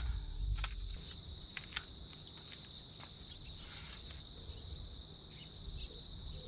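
Crickets chirring in a steady, even high-pitched drone, with a few faint ticks in the first two seconds.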